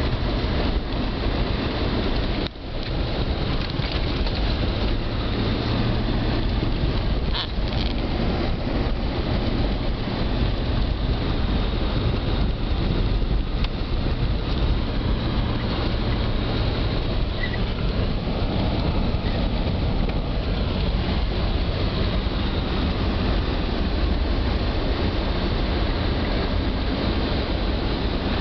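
Steady cabin noise of a car driving on snow-covered streets: engine and tyre rumble with a hiss of road noise, briefly dropping out about two and a half seconds in.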